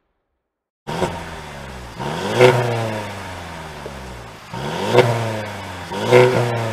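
Mercedes C300 coupe's turbocharged four-cylinder engine, heard at the exhaust fitted with a resonator delete, revved while parked: it comes in about a second in and is blipped three times, each rev rising in pitch and falling back toward idle.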